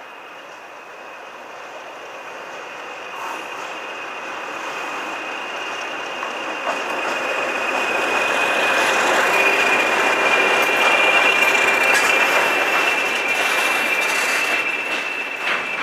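A pair of Class 20 diesel locomotives running in multiple and hauling a nuclear flask wagon. Their engine and wheel noise grows louder as they approach, is loudest as they pass, then eases a little, with a high steady whistle throughout.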